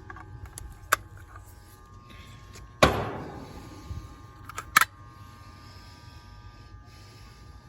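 Hand tools knocking and clicking on the metal of a failed Bryant air-conditioner compressor while its terminal cover is worked off. One loud ringing strike comes about three seconds in, with a few lighter clicks before and after, over a faint steady hum.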